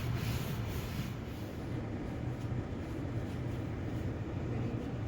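Steady low hum of a car left running with its defrosters on, with a few brushing swishes of snow being cleared in the first second.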